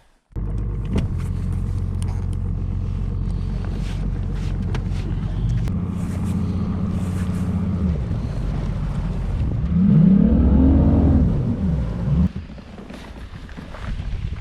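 Engine running steadily at travelling speed, a low drone that swells and sweeps up and back down in pitch about ten seconds in, then drops to a quieter level near twelve seconds.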